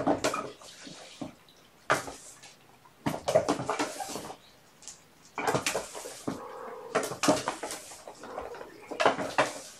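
Kittens scrambling and scuffling about, making irregular bursts of rustling and scratching with sharp knocks.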